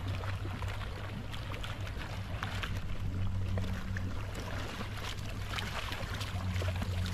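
Water splashing and churning as a large Mekong catfish thrashes and is lifted out of shallow lake water, with a hose outlet churning the water beside it. A steady low hum runs underneath.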